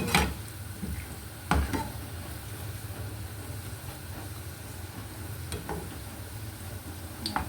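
Sliced onions frying in a pan, sizzling steadily, with a spoon knocking against the pan four times as they are stirred while being browned.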